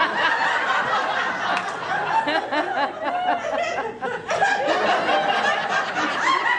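An audience laughing, many voices at once, easing briefly about four seconds in and then swelling again.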